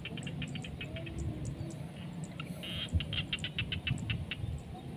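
Rapid trains of short, high chirps at about eight a second, from a small animal calling in a rice paddy. The first train fades about a second in, and a second one runs from about two and a half to four seconds, over a low steady rumble.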